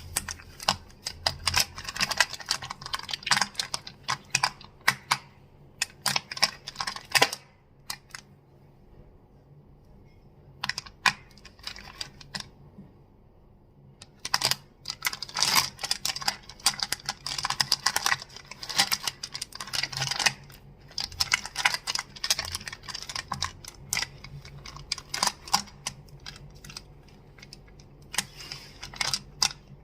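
Crystals being clicked and tapped in fast, dense runs of sharp clicks, like rapid typing. The runs break off about a quarter of the way in, resume briefly, pause again, then carry on with another short lull near the end.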